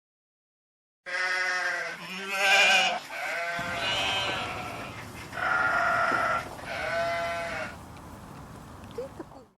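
Sheep bleating, about six calls one after another, some overlapping, starting about a second in after a moment of dead silence and growing fainter near the end.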